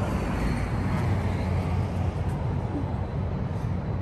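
Steady low rumble of road traffic on a city bridge, heard from the walkway.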